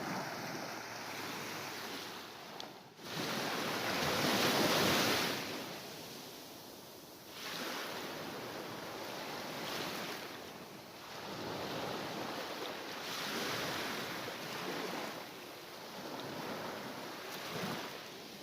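Mediterranean sea waves breaking and washing in repeated swells. The largest surge comes about four seconds in, followed by smaller surges every two to three seconds.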